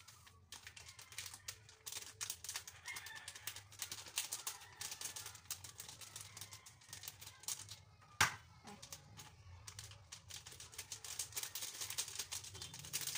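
Plastic breading-mix packet crinkling and crackling as it is squeezed and shaken to pour the mix into a cup, with one sharper click about eight seconds in.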